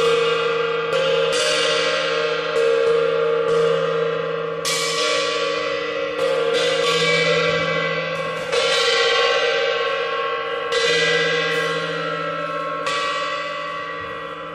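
Resonant percussion struck about every one to two seconds, bell- or gong-like. Each stroke rings on and fades into the next, over the same few held pitches.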